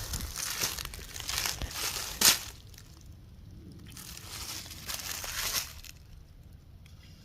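Rustling and crunching of dry leaves and twigs, with a sharp crack a little over two seconds in, then quieter spells with light rustling.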